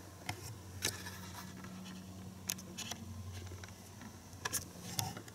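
Faint handling noises: a few short clicks and light scratchy rustles over a low steady hum.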